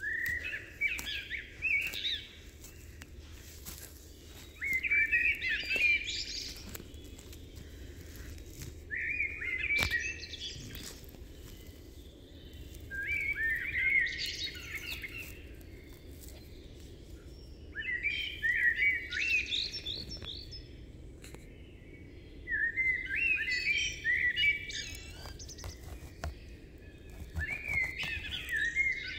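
A songbird singing short phrases of quick, high notes, about seven phrases, one every four to five seconds, over a faint steady outdoor background hiss.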